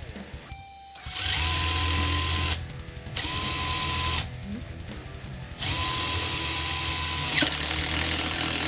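Makita TD022D 7.2 V folding impact driver run in three bursts: two short ones of about a second each, then a longer one of about four seconds.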